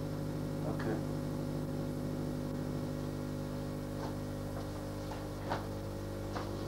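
A steady low electrical hum with even overtones, and a few faint short rustles and clicks about a second, four and five and a half seconds in.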